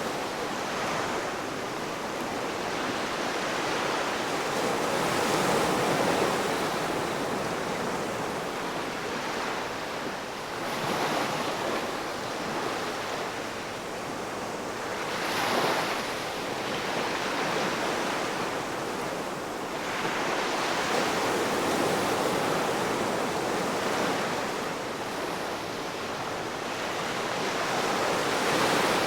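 Ocean waves breaking and washing up the shore, a steady surf hiss that swells and ebbs every few seconds, with one sharper crash about halfway through.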